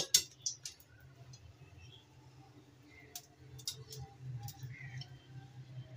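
Soft wet squishes and light clicks as a slice of bread is pressed and turned in a bowl of beaten egg mixture, over a steady low hum.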